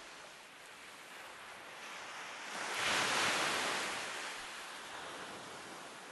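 Ocean surf: a steady hiss of sea, with one wave surging up about halfway through and then washing away.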